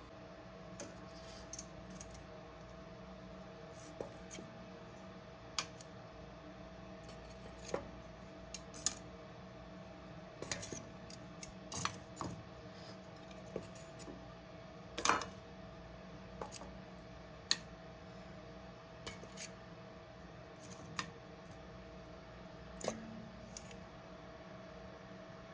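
Sharp metallic clicks and clinks against a metal pot as fried mobile misti pieces are set one by one into sugar syrup, about twenty at irregular intervals, the loudest about fifteen seconds in.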